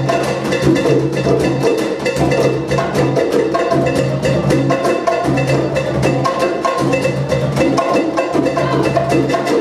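Peruvian folk dance music with quick, busy hand percussion over pitched instruments.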